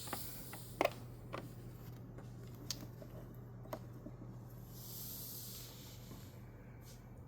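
Faint steady hum of a Dangbei Mars Pro projector's cooling fans running while it is powered on but shows no picture, its LED blinking white. A few small clicks and handling taps sound in the first few seconds, the loudest about a second in, and a soft hiss comes around the middle.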